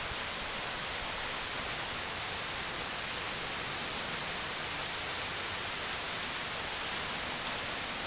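Steady rain falling on grass and shrubs, an even hiss.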